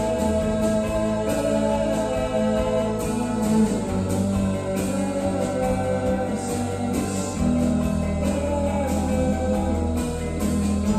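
Music with guitar and sustained tones over a steady beat.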